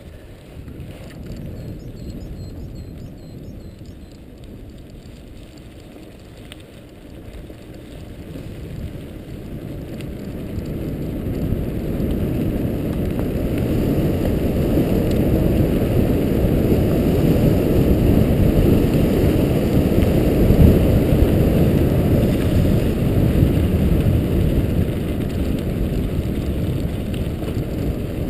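Mountain bike riding down a gravel forest track: the tyres rumble over the gravel and wind rushes on the camera microphone, in a deep, even noise. It grows louder about a third of the way in and stays loud.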